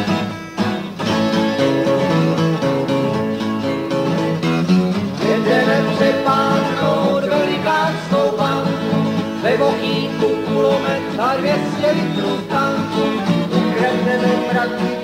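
Instrumental break in a country-folk song: acoustic guitars playing, with a lead melody sliding and bending in pitch over them from about five seconds in.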